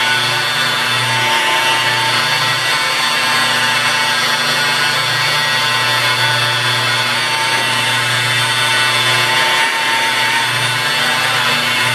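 Corded rotary polisher with a foam pad running steadily while it is worked across car paint: an even motor whine over a low hum.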